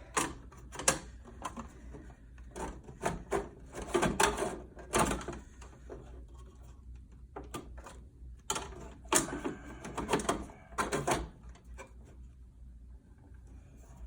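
Irregular clicks, knocks and scrapes of parts being handled and fitted as a PTAC's control board is slid back into its slots and re-secured, in two busier clusters of knocks.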